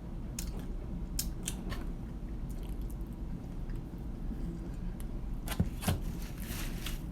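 Close-up eating sounds: chewing with scattered small clicks, and two louder knocks a little after halfway through.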